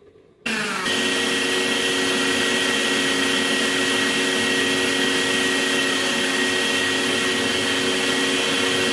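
Westpoint electric meat grinder switched on about half a second in: its motor spins up and then runs steadily with a hum and a high whine, under load as it minces cooked chicken and chana dal into strands.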